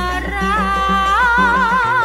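Karaoke-style duet: a woman singing a wavering, vibrato-laden melody over a backing track with a steady bass and beat. The melody steps up about a second in.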